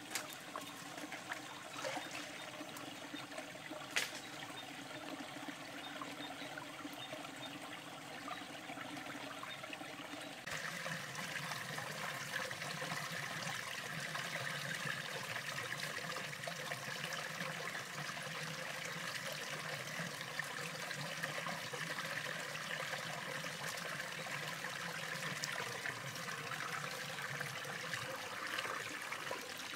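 Stream water trickling and running over rocks, steady, with a few sharp knocks in the first third. About ten seconds in, the running water becomes suddenly louder and fuller.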